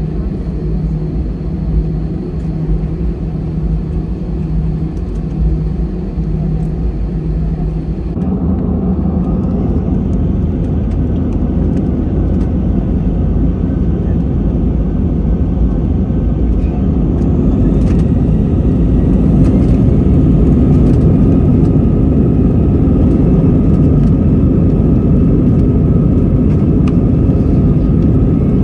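Airbus A320-200 cabin noise as the airliner turns onto the runway. About eight seconds in, the engines spool up to takeoff thrust and the takeoff roll begins, and the engine and rushing noise grows steadily louder, with a further rise about halfway through.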